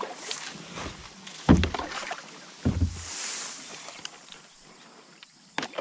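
Handling sounds from a Predator MX fishing kayak on the water: a few dull knocks against the hull, the loudest about one and a half seconds in and again near three seconds, with a brief splash-like hiss just after.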